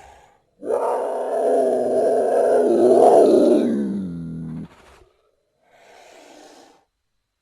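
Custom-made Carnotaurus roar sound effect: one long roar of about four seconds that drops in pitch near the end and cuts off, followed by a faint short trailing sound.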